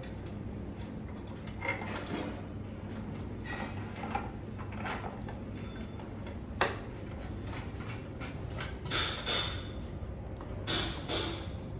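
Scattered clicks and knocks of chair parts, screws and tools being handled during assembly, with one sharper knock about two-thirds of the way through, over a steady low hum.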